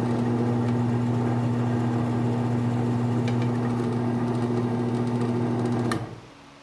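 Electric drill press motor running steadily with a constant hum while a Forstner bit bores a hole in wood. Near the end there is a click and the motor is switched off, its sound falling away quickly.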